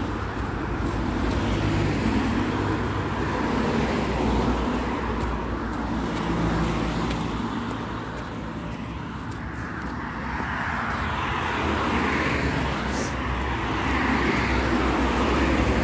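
Road traffic: a steady noise of cars running past on the street, easing a little about halfway and growing louder again near the end.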